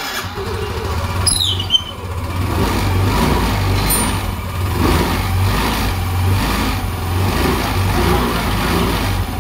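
Yamaha Ray Z scooter's freshly rebuilt single-cylinder four-stroke engine starting up and running steadily, fitted with a new cylinder block, piston and valves to cure a noise. A short falling squeal sounds about a second in.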